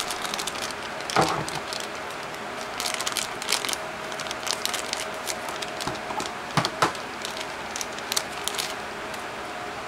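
Unboxing packaging and accessories being handled: crinkling with scattered small clicks and a few louder knocks.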